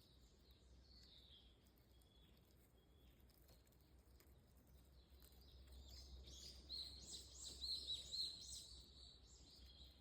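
Faint outdoor ambience with birds chirping: a quick run of high, falling chirps about six seconds in, over a low steady rumble.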